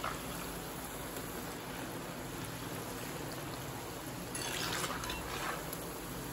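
Rice-flour bondas deep-frying in hot oil in a cast-iron kadai, a steady sizzle. A louder, brighter rush of sizzling comes about four and a half seconds in and lasts about a second, as a slotted ladle stirs the fritters in the oil.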